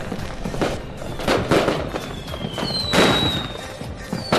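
Fireworks display: aerial shells bursting with a string of bangs and crackle, the loudest about three seconds in, with short whistles falling slightly in pitch.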